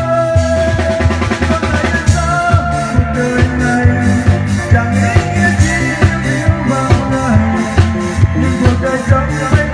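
Band playing an instrumental passage with no singing: a drum kit keeps a steady beat with bass drum and snare hits, under a bass line and held melodic lines.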